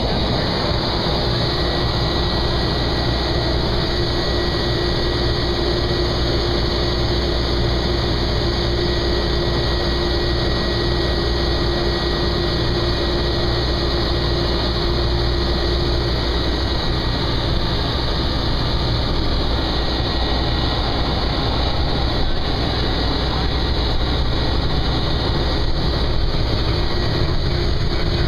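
Propeller airplane's engine running steadily at low power, heard from inside the cockpit as a constant drone with a steady low hum and a faint high whine.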